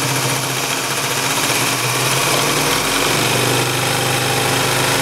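Adler 189A sewing machine running very fast on its 5,000 RPM motor: a steady motor hum under the rapid, even clatter of stitching as it sews zigzag through four layers of cotton.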